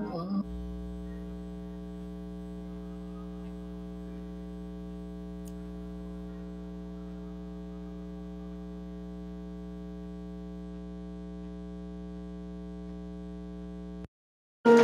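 Steady electrical mains hum with its overtones in the sound system's feed, unchanging throughout, then cutting off suddenly about fourteen seconds in.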